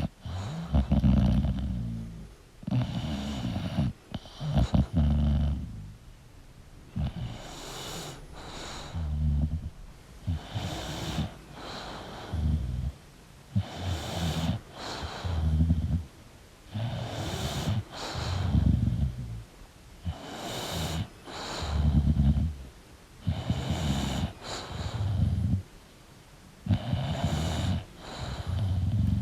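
English bulldog snoring in its sleep, steady and rhythmic, with about one breath every three seconds. Each breath carries a snore both in and out.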